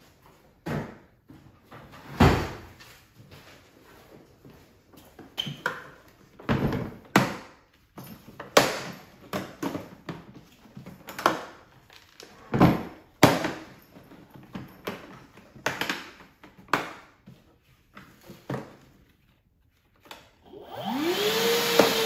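Hard plastic clunks, clicks and knocks of Milwaukee Packout cases and vacuum parts being opened, handled and latched, coming irregularly. Near the end the Milwaukee M18 Fuel Packout vacuum switches on: its motor spins up with a rising whine and settles into a steady run with loud airflow hiss.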